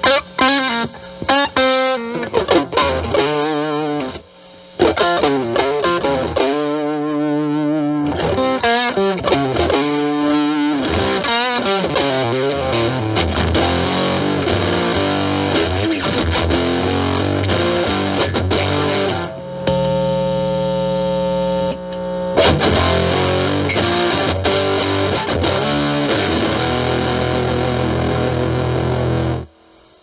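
Stratocaster electric guitar played through an Electro-Harmonix Germanium 4 Big Muff Pi with both its overdrive and distortion sides on, into the clean channel of a Marshall Valvestate amp: distorted chords and single-note lines. Short chopped notes at first, bent, wavering notes about a third of the way in, a held chord about two-thirds through, and a brief stop near the end.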